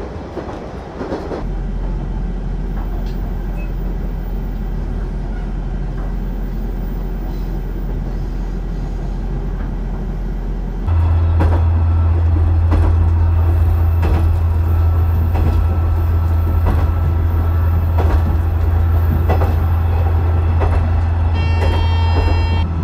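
KiHa 100 diesel railcar running along the line, its engine a steady drone with faint clicks from the wheels over the track. About halfway through the sound becomes louder.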